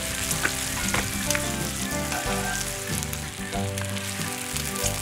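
Strips of bacon frying on a Blackstone flat-top griddle: a steady sizzle with many small crackling pops of spattering fat.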